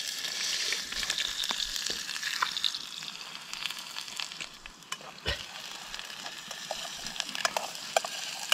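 Chopped onion frying in hot oil in a pan over a wood fire, a steady sizzle that eases off a little, with scattered clicks and taps as it is stirred.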